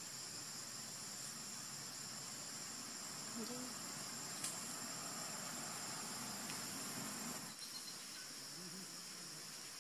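Steady high-pitched drone of insects, crickets or cicadas, holding two even tones over a hiss; the higher tone stops about three-quarters of the way through while the lower one carries on.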